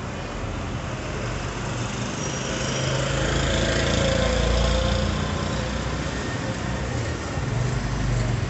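A small engine or motor running steadily, growing louder around the middle and then easing back.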